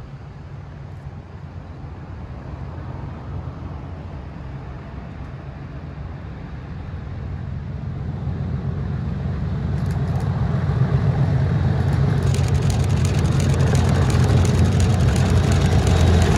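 A pair of Class 37 diesel locomotives working in multiple approaching, the low throb of their English Electric V12 engines growing steadily louder. Wheel and rail noise joins in over the last few seconds.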